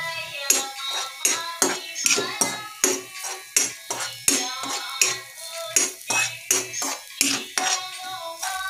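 Steel spatula scraping and clinking against an iron kadai as chana dal is stirred in hot oil, about two to three clinks a second, each leaving the pan briefly ringing.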